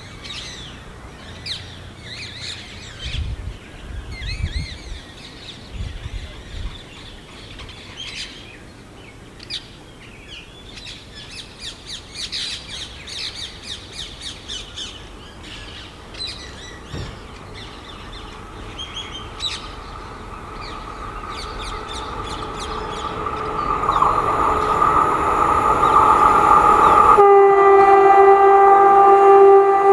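Birds chirping over a quiet background, then an approaching express train hauled by a WAP4 electric locomotive grows steadily louder. Over the last few seconds the locomotive sounds a long horn blast, which shifts to a lower note near the end.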